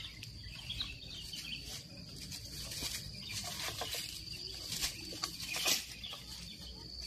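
Rustles and a few sharp knocks of a long bamboo picking pole pushed into the leafy branches of a sapodilla tree, the loudest a little before six seconds in. Behind them, birds chirp over a steady high-pitched insect hum.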